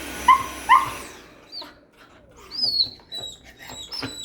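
Nova Scotia duck tolling retriever giving two short, sharp yelps in quick succession, then thin high-pitched whines.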